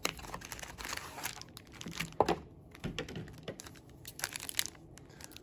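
Yu-Gi-Oh! booster box being opened and its foil booster packs handled: irregular crinkling and rustling of packaging with a few sharp clicks.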